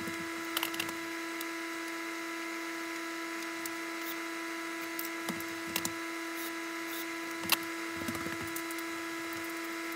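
A steady electrical hum with a high whine in it, under scattered sharp clicks and light knocks from a ceiling light fixture being handled and fastened up. The sharpest click comes about three-quarters of the way through.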